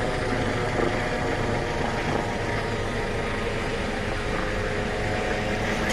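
Airbus H145 helicopter flying overhead, its rotor and turbine engines running with a steady, even sound.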